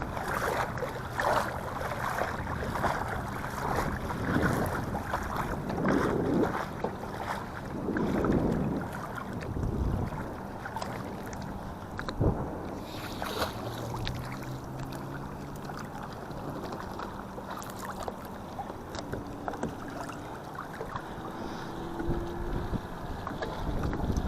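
Wind gusting on the microphone, with a faint steady motor-like hum in the middle and again near the end.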